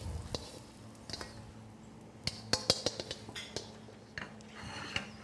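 Metal tongs and a wok clinking and scraping against a ceramic plate as fried rice is served, a scatter of irregular sharp clicks and knocks.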